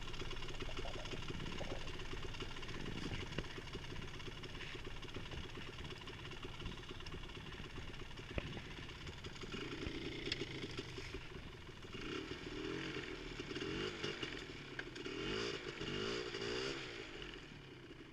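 Polaris Scrambler ATV engine running under load, revved in several rising and falling surges in the second half while it tries to pull an old fence wire out of the ground, not gaining traction.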